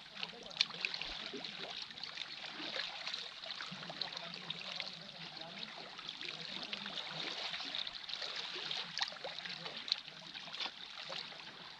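Calm seawater lapping and trickling among the boulders of a rocky shoreline, with scattered small splashes and ticks.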